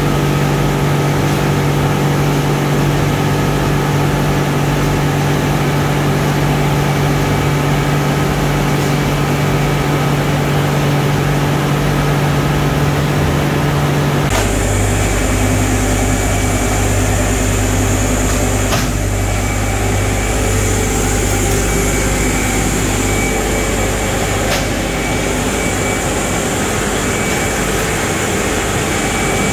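Wood pellet production line machinery running: a loud steady industrial drone of electric motors, fans and conveyors with several steady hum tones. The sound changes abruptly about halfway through to a deeper rumble with a high airy hiss.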